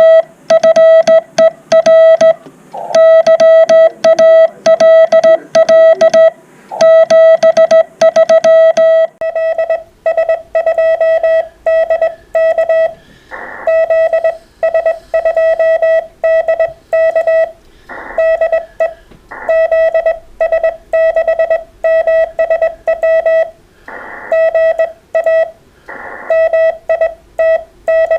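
Amateur radio Morse code (CW): a single steady tone, keyed on and off in dots and dashes. About nine seconds in, the tone turns a little duller and faint background noise comes in under it, with a few short crackles.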